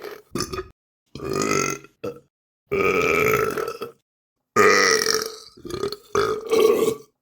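A person burping again and again: about seven burps, several long drawn-out ones of about a second with short ones between them, each cut off into dead silence before the next.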